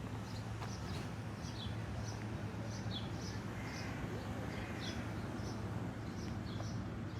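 Small birds chirping in short, high calls, about two a second, over a steady low hum.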